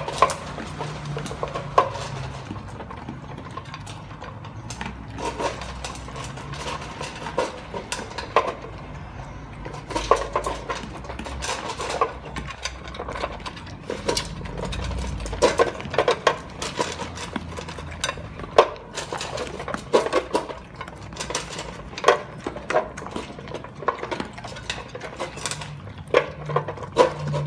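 A Rottweiler and a Fila Brasileiro eating dry kibble from aluminium bowls: chewing and crunching, with the metal bowls clinking and knocking in irregular clatters.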